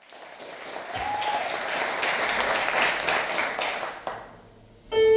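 Audience applauding, dying away after about four seconds. Just before the end, a sustained piano chord starts: the opening of the song's accompaniment.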